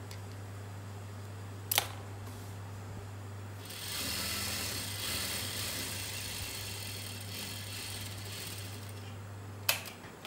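Industrial sewing machine stitching a fabric hem: its motor hums steadily, and from about four seconds in the machine runs, louder, until near the end. A sharp click comes about two seconds in and another near the end, where the hum stops.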